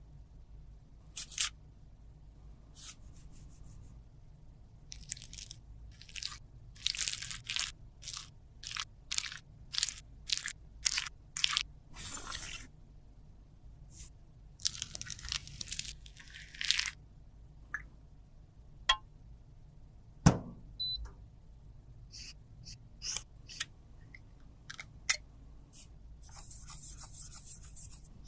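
Close-miked handling sounds: quick runs of crunching and crinkling as paper sheets are handled by gloved fingers, with one sharp knock about twenty seconds in. Near the end comes a steady rubbing of paper against a metal lipstick tube.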